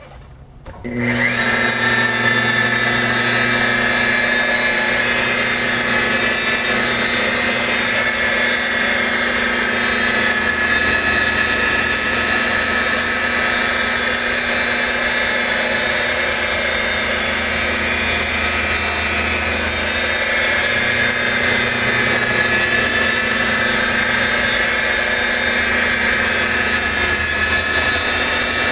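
Rotary buffer starting up about a second in, then running steadily with a whine while it polishes boat gel coat with marine compound; its pitch dips slightly now and then as the pad is worked. This is the compounding stage, cutting out the heavy swirl and sanding marks left by wet-sanding.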